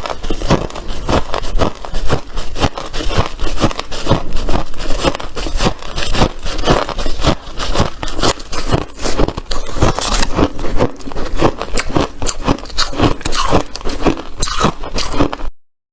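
Close-miked, dense crunching and scraping of hard white ice, many crackling crunches in quick, irregular succession, cutting off suddenly near the end.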